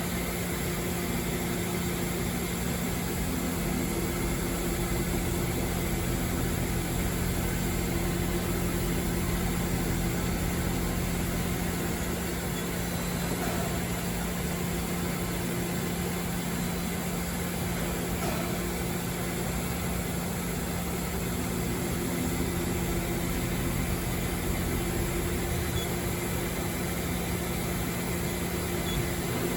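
Steady machine hum with a constant low drone and a higher steady tone, from a powered-up Mori Seiki NT1000 CNC multi-tasking lathe with its motors, pumps and cooling fans running.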